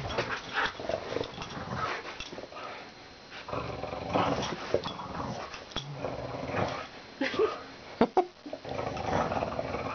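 Dog growling in rough, uneven bursts while tugging on a plush toy: playful tug-of-war growling. There is one sharp click late on.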